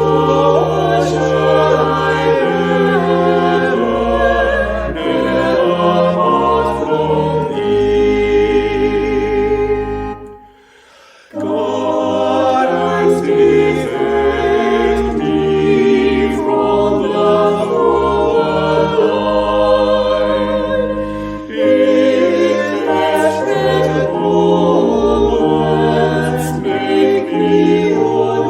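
A choir singing without accompaniment, holding slow chords, with a brief pause about ten seconds in.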